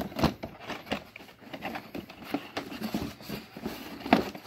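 Handling noise from a plastic robot vacuum being picked up and turned over: a quick, irregular run of light knocks, taps and rustles.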